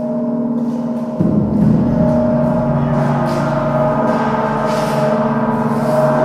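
Gongs and hanging metal pans of a music sculpture ringing under mallet strikes: a low stroke about a second in, then lighter strikes over the sustained ringing.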